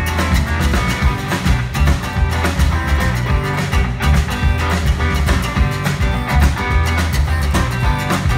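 Live blues band playing an instrumental groove: electric guitar and bass over drums. A vest frottoir (rubboard) is scraped in a fast, steady rhythm.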